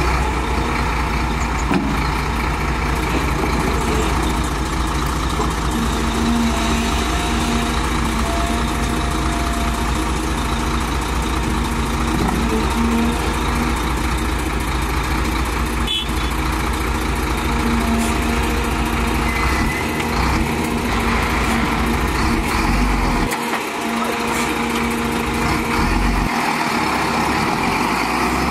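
Heavy diesel engines of a Cat 320 excavator and a stuck dump truck running steadily while the excavator's bucket pushes the truck out of the mud.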